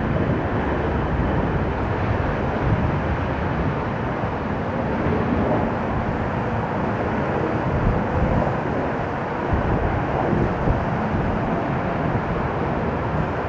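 Strong gusty wind buffeting the microphone: a steady rushing noise with uneven low rumbles from the gusts.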